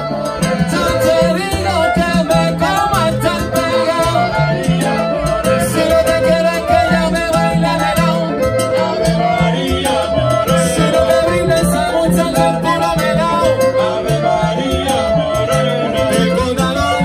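Live salsa band playing continuously, with a repeating bass line under sustained melodic lines.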